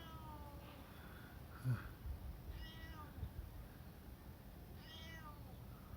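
Calico cat meowing: one meow trailing off at the start, then two more, about 2.5 and 5 seconds in. A short thump a little under two seconds in is the loudest moment.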